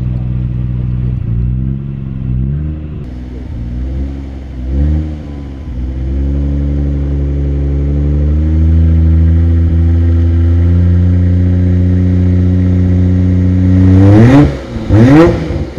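Car engine idling, blipped several times in quick short rises and falls, then held at a steady, slowly climbing speed. Near the end it is revved sharply twice, the loudest moments.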